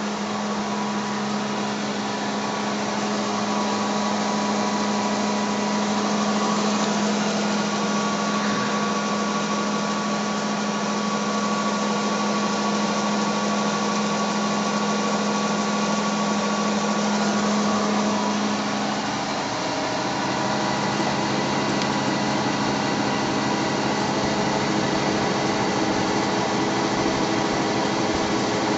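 Motor-driven multi-disc rotor of a coil-generator test rig spinning at speed: a steady whirring hum over an even hiss. About two-thirds of the way through the hum dips slightly in pitch and settles into a new steady note.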